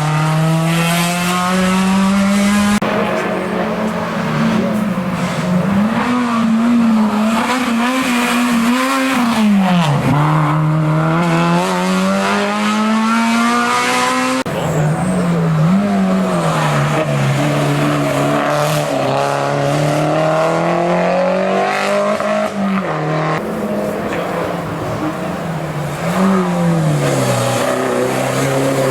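Hill-climb race car engines at full throttle, revs climbing and dropping sharply through gear changes and lifting off for bends. The sound changes abruptly three times, as from one car to the next.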